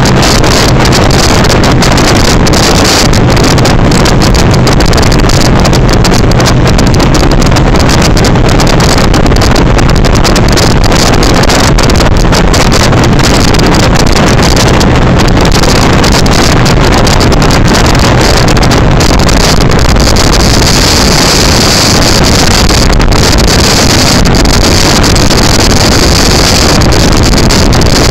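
Loud, steady rush of wind over the microphone on a Harley-Davidson motorcycle cruising at highway speed, with the engine's steady drone underneath.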